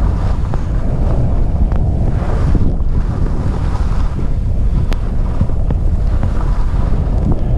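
Heavy wind buffeting a GoPro microphone while skiing downhill: a loud, steady, low rumble.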